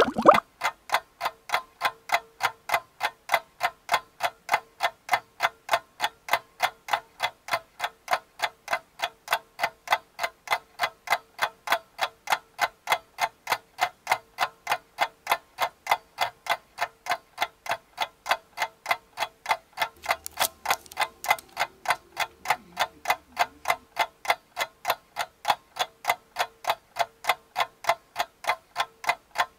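Steady, evenly spaced clock-like ticking, about three ticks a second.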